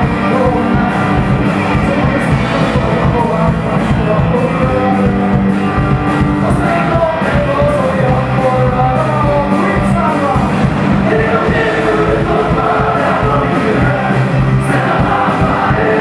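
Punk rock band playing live: electric guitars with a lead singer, loud and continuous.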